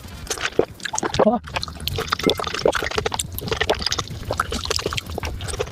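Close-miked wet chewing and crunching of juicy fruit, a dense run of quick crackles and juicy squelches.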